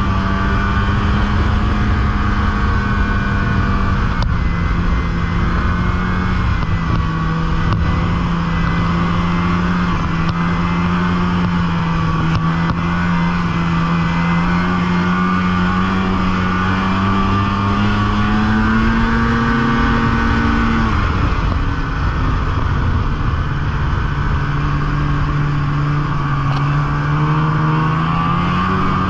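Snowmobile engine running at speed, a steady drone whose pitch dips about four seconds in and then climbs slowly. About two-thirds of the way through the pitch drops sharply, then rises again near the end.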